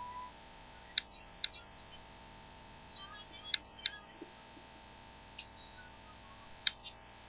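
Several short, sharp, high chirps scattered over a faint steady background hum: small birds chirping.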